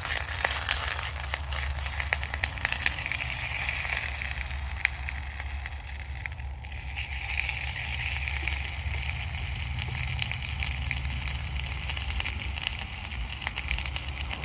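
Sausages sizzling in olive oil in a small stainless steel mess-kit pan: a steady frying hiss peppered with many small crackling pops, over a steady low hum.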